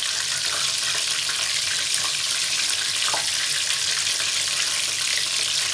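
Flour-coated chicken pieces shallow-frying in hot oil in a frying pan: a steady sizzle. There is one faint click about three seconds in.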